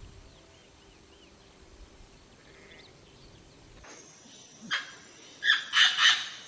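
Faint small chirps, then a few short loud animal calls, three of them in quick succession near the end.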